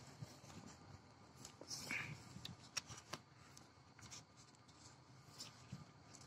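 Faint paper rustling and a few light clicks, from a textbook and notebook being handled.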